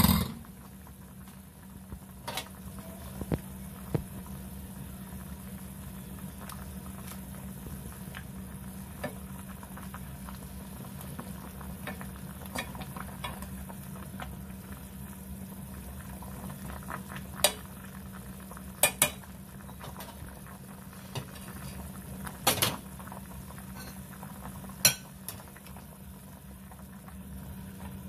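Pork simmering in a stainless-steel saucepan of broth, bubbling over a steady low hum, while metal tongs clink against the pan as the meat is turned. The loudest clink comes right at the start, with a cluster of others in the second half.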